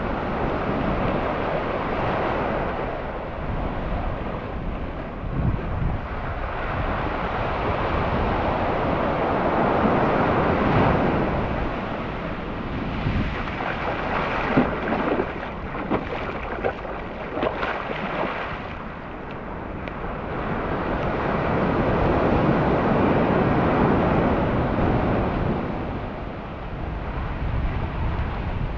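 Surf washing onto a beach, a steady rush of waves that swells up twice, with wind buffeting the microphone in short gusts near the middle.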